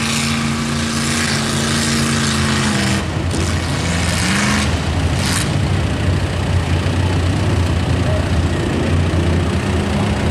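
Pickup truck's engine held at high, steady revs as it plows through a mud pit, with a hiss of splashing mud and water over it. About three seconds in the revs break off, there is one short upward rev a second and a half later, the hiss stops, and the engine carries on at a low rumble as the truck bogs down and gets stuck.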